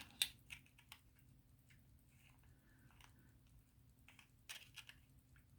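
Near silence with a few faint, irregular clicks and taps, most of them about four and a half seconds in, from handling the pocket watch and small tools at the bench.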